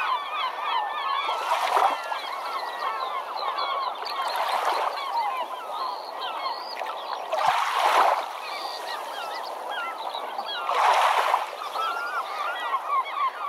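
A flock of birds calling, many short overlapping calls in a dense chatter. A rushing wash swells every three seconds or so.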